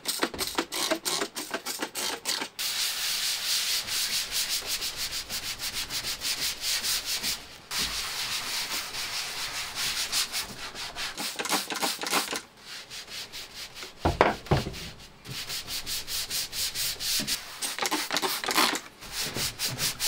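Rapid back-and-forth wiping by hand on the painted steel top panel of a server case, several strokes a second, with glass cleaner sprayed on to scrub off stains. The rubbing stops briefly a couple of times.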